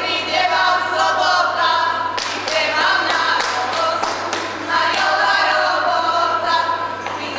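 A choir singing, with sharp percussive taps or claps running through it.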